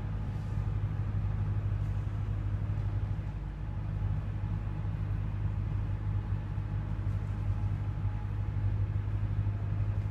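Steady, unchanging low-pitched machine hum, strongest in the low range, with no speech.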